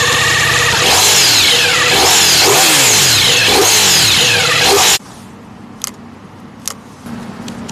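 Ducati Diavel V4's V4 engine running steadily, then revved up and down several times. It cuts off suddenly about five seconds in, leaving a few faint clicks.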